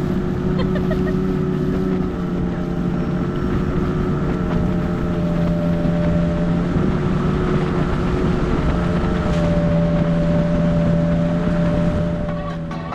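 Longboat outboard motor running steadily at speed, with wind on the microphone.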